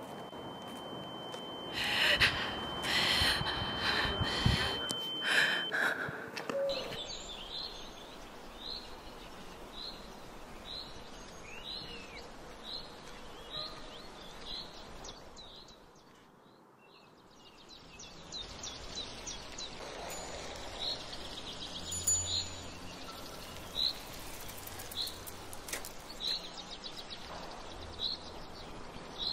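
Outdoor ambience with a small bird giving one short, high chirp about once a second. In the first few seconds, a run of loud, evenly spaced thumps plays under a steady high tone.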